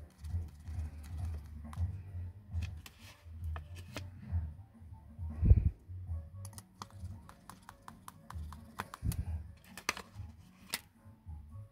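Small metallic clicks and taps of a precision screwdriver and tools working on an opened smartphone's frame, with a quick run of ticks about six seconds in and a couple of duller knocks.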